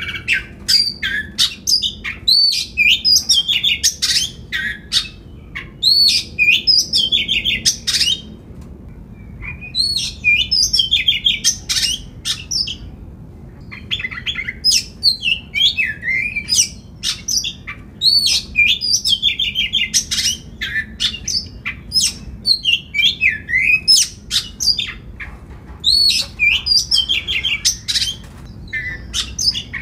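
Oriental magpie-robin singing vigorously: loud, rapid phrases of varied sliding whistles and harsher notes, broken now and then by short pauses.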